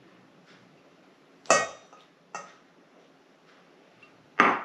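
A small ceramic bowl clinking against a stainless steel mixing bowl and the countertop while an egg is poured in: a loud ringing clink about a second and a half in, a light tap soon after, and another loud clink near the end.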